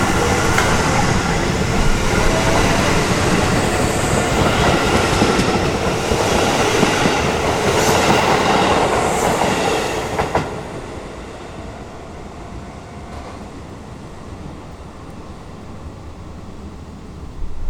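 Keisei electric commuter train passing close by, wheels clattering over rail joints with a few sharp clacks. Its sound drops off fairly suddenly about ten seconds in, leaving a lower, steady rumble.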